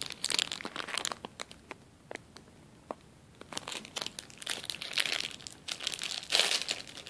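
Clear plastic bag holding a wax melt crinkling as it is handled and opened. The crackling comes in two spells with a quieter lull in the middle.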